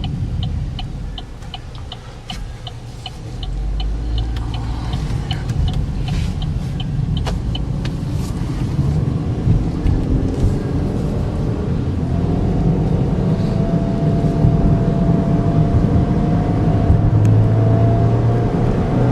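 Cabin sound of a 2013 GMC Terrain's 2.4-litre four-cylinder and its road noise on a test drive, with a light, even ticking about three times a second for the first eight seconds. From about twelve seconds in, the engine note rises slowly and grows louder as the car accelerates toward highway speed.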